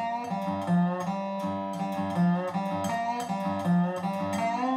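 Background music: a plucked guitar playing a melody, with a few notes sliding in pitch.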